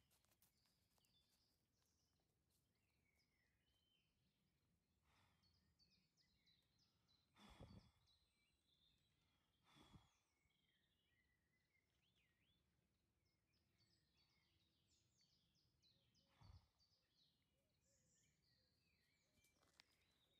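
Near silence with faint birdsong, many small chirps and whistles, broken by a few short, soft whooshes, the loudest about a third of the way in.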